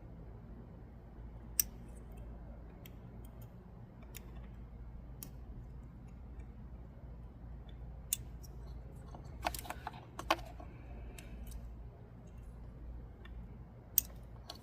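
Scattered sharp clicks and small plastic taps of hands working wires into an ignition coil connector, with a quick cluster of clicks about nine to ten seconds in, over a steady low hum.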